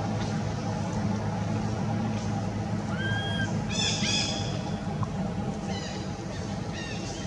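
High, arched animal calls: one clear call about three seconds in, a sharper burst of squeaky calls a second later and fainter squeaks near six seconds, over a steady low hum.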